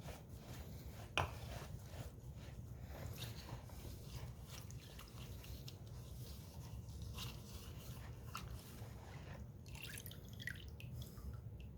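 Liquid sealer dripping off freshly dipped concrete pieces in irregular small drops, with a sharper click about a second in, over a low steady hum.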